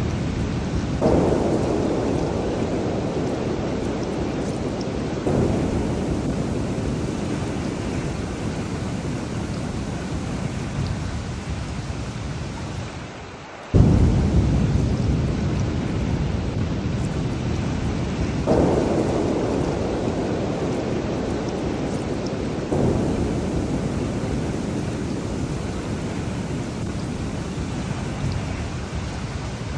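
Steady heavy rain with rolling thunder. Deep rumbles set in sharply about a second in, around five seconds, most loudly around fourteen seconds after a brief lull, and again around eighteen and twenty-three seconds, each dying away slowly under the rain.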